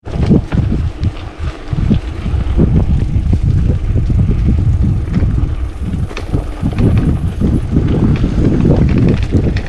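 A mountain bike rolling over a bumpy dirt singletrack: the tyres and frame rattle and knock over rough ground under heavy wind rumble on the microphone.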